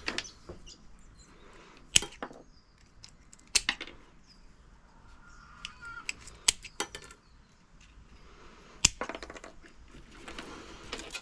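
Cutters snipping through electrical cords to take the plugs off: a handful of sharp snaps spread over several seconds, the loudest about two seconds in and near nine seconds, with lighter clicks and rattles between.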